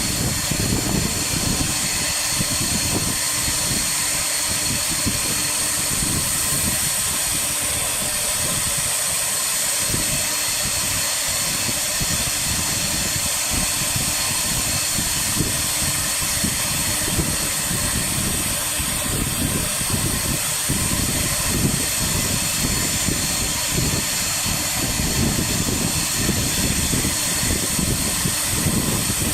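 Air-cooled spindle of a CNC router running with a steady high whine while its bit carves MDF, over an uneven low rumble from the cutting.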